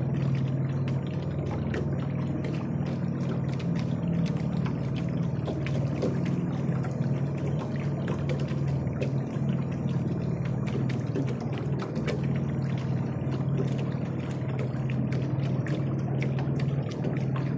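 A small boat cruising slowly along a canal: the boat's motor runs with a steady low hum, under continual splashing and lapping of water against the hull.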